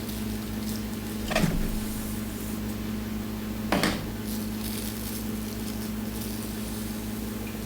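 Velcro hair rollers being twisted and pulled out of hair, two short sounds about two seconds apart, over a steady low hum.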